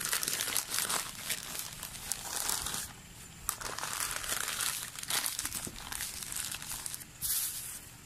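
Newspaper crinkling and rustling in irregular bursts as it is folded and rolled around vegetables by hand.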